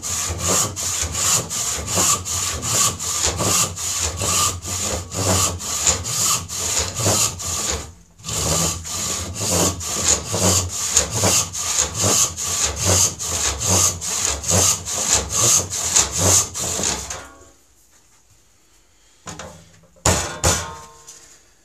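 Hand rip saw cutting along the grain of a board, in steady rasping strokes about two to three a second, with a brief pause about eight seconds in. The sawing stops a few seconds before the end, and a few wooden knocks follow near the end.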